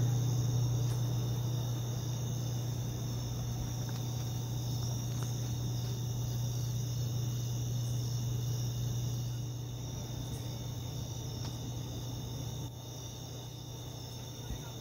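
A chorus of insects trilling steadily in several high pitches, over a steady low hum that is the loudest sound and grows somewhat quieter toward the end.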